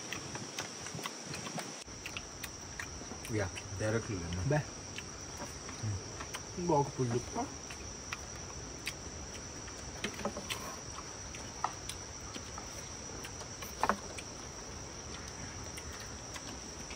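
Steady, high-pitched drone of an insect chorus, crickets or cicadas, holding one pitch throughout. Scattered light clicks run over it, with short snatches of a quiet voice about four and seven seconds in.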